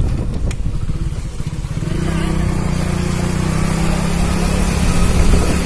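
Motorcycle engine running at low speed, an uneven low putter that settles into a steady hum about two seconds in.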